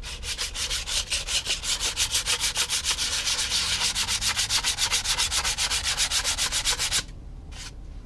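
120-grit sandpaper on a sanding block rubbed in quick, even back-and-forth strokes over spackle filler at a balsa model fuselage's seam. The strokes stop abruptly about seven seconds in.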